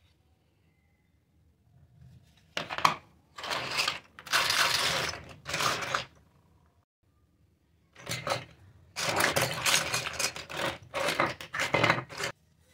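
Small plastic toy kitchen pieces clattering and rattling against each other and the tabletop as hands rummage through a heap of them, in two bouts of a few seconds each.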